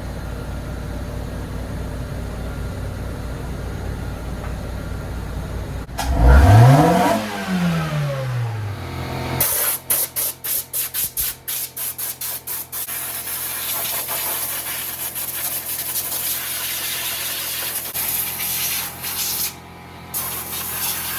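An engine running steadily, with one rev rising and falling about six seconds in. Then, from about nine seconds, water sprays hard from a hose nozzle in short on-off bursts and then more steadily, washing down an oily engine bay to trace a leak.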